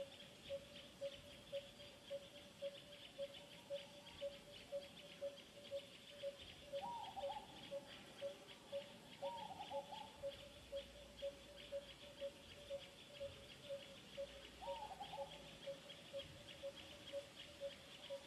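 Outdoor animal calls: a short, regular piping note repeating about twice a second over a high, dense ticking buzz. Three brief falling calls come a little before the middle, near the middle and later on.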